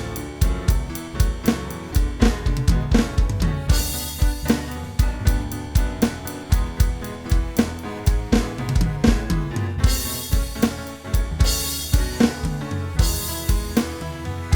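Instrumental backing track with a steady drum-kit beat of kick, snare and hi-hat; cymbals crash about four seconds in and again several times near the end.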